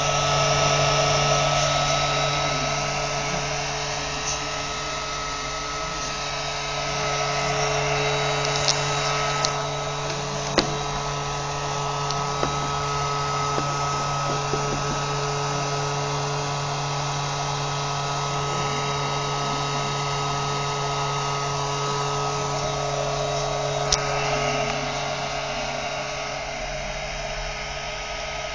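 Small electric suction motor running steadily, drawing air and dust through a homemade plastic-bottle dust collector, with a constant hum and whine. A few sharp clicks break in, about nine to eleven seconds in and again near twenty-four seconds.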